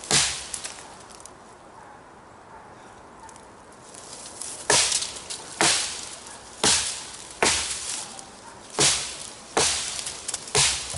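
A heavy 8 mm thick Camillus Carbon V kukri chopping into a log: one chop at the start, a pause of about four seconds, then a steady run of sharp chops about one a second.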